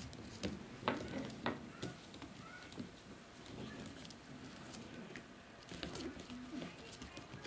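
Shetland sheepdog puppies playing tug with a fleece rope toy on a tile floor: claws clicking and scrabbling on the tiles, with short low growling sounds. The two sharpest knocks come about a second in.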